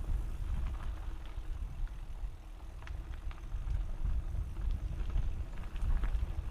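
Mountain bike riding down a dirt trail, recorded on a GoPro: a steady low rumble of wind and tyres on the microphone, with scattered clicks and rattles from the bike over rough ground.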